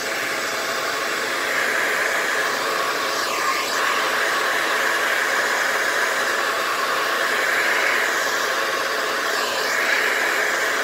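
Handheld hair dryer blowing steadily on high, heating an iPhone battery to soften its strong adhesive so the battery can be pried out.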